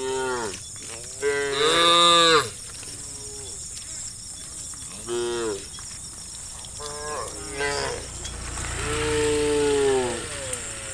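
Herd of cows mooing: about six moos, each rising and then falling in pitch, the loudest about two seconds in and a long one near the end.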